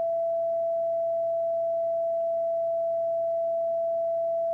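Steady single-pitched beat note from an Icom IC-7610 transceiver in CW mode: the unbroken carrier of a 630-metre band beacon about 472 kHz, heard as a constant mid-pitched tone over faint receiver hiss.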